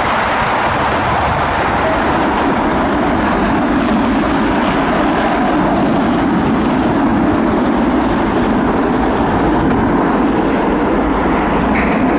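Loud, steady jet aircraft engine noise, with wind buffeting the microphone underneath.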